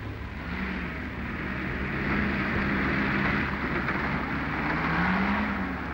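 Motor vehicle engine running, its pitch slowly rising and falling, with a rushing hiss over it that grows louder through the middle.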